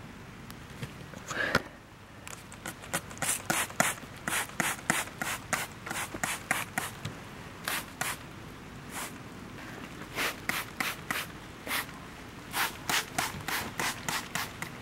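Hand trigger spray bottle squirting Tomatotone fruit-setting hormone onto tomato plants. It goes in quick hissing squirts, about three a second, in runs with a short pause in the middle.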